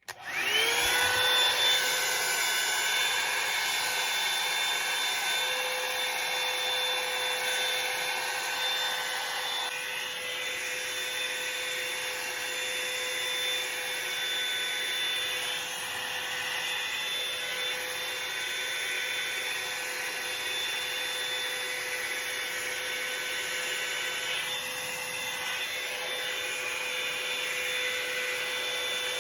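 Revlon hair dryer brush (volumizer) switched on, its motor spinning up with a rising whine in the first second, then running steadily: a high motor whine over the rush of blown air.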